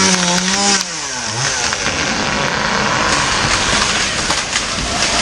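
Chainsaw engine running at high revs, then dropping in pitch about a second in as the throttle is released. This is followed by a loud, continuous rush of noise with scattered cracks: the felled tree coming down through the branches.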